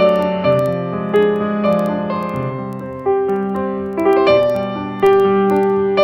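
Instrumental music: a piano-toned keyboard playing a slow passage of held chords and melody notes, struck anew every half second or so, with no singing.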